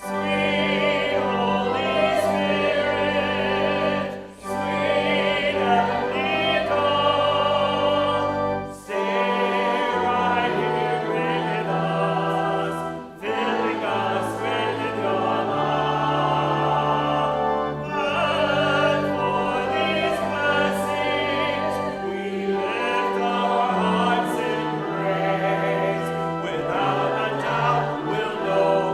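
Choral singing with vibrato over sustained low accompaniment, in long phrases broken by three brief pauses in the first half.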